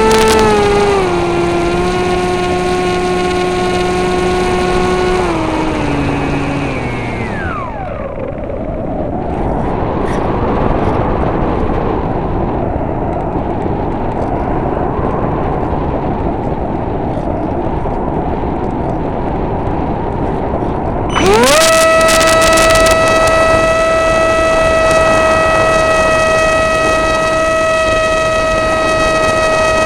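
Brushless electric motor and pusher propeller of an Easy Star RC plane, picked up by the onboard camera's microphone. The whine steps down in pitch, winds down and stops about seven seconds in, leaving only wind rushing over the microphone. About 21 seconds in, the motor spools back up quickly to a higher steady whine.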